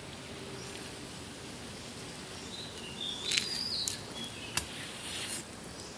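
Steady outdoor background noise, with a bird's short, high call about three seconds in and a couple of faint clicks.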